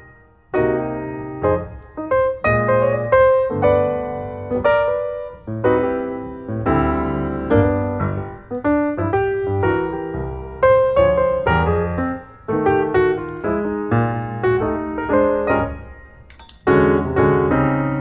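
Background piano music: a steady run of struck notes and chords, with a brief pause near the end.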